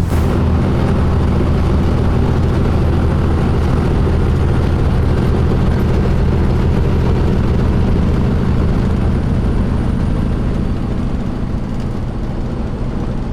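Peterbilt 379 truck's diesel engine running steadily under way, a constant low drone with road and wind rumble, easing off slightly near the end.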